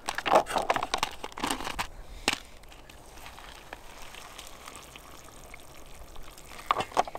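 Hot water poured from a Jetboil stove's cooking cup into an instant-noodle bowl: some clatter from handling the stove at first, then a steady pour, and a few clicks near the end.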